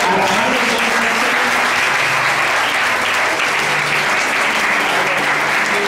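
A church congregation applauding: dense, steady clapping that holds evenly throughout.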